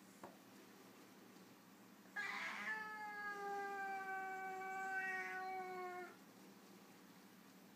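Foreign White cat giving one long, low warning yowl of about four seconds at another cat, starting about two seconds in with a short rasping onset and sagging slightly in pitch before stopping.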